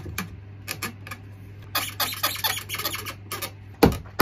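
Hand-tool work on a wooden table leg joint: scattered clicks and a run of scratchy rubbing strokes, then a couple of sharp knocks near the end, over a steady low hum.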